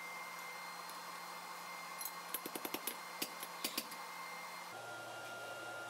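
A quick run of light metallic clinks, about ten in under two seconds, from tools and hot steel handled on a blacksmith's anvil, over the steady whir of a running forge.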